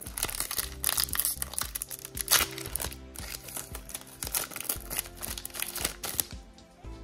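Foil wrapper of a Pokémon booster pack crinkling and tearing as it is opened by hand, in irregular crackles, with the loudest rip about two seconds in. Background music plays underneath.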